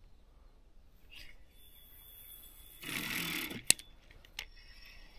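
Feeder rod cast with a 60 g marker lead: line hissing off the spinning reel, a louder rush of noise about three seconds in, then a single sharp click.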